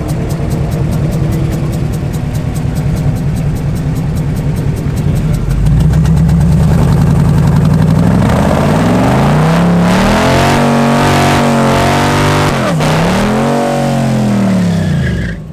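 Swapped 5.3-litre GM V8 in a Mazda sedan idling, then revving up hard from about eight seconds in and holding high rpm, with a brief drop in revs and another rise and fall near the end. The owner believes a cylinder is losing compression through a leaking injector-port seal.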